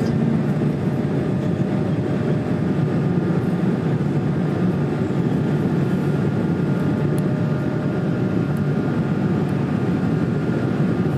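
Cabin noise of an Airbus A220 climbing after takeoff: the steady rumble of its Pratt & Whitney geared turbofan engines and rushing air heard through the fuselage, with a faint steady whine that comes in about halfway through.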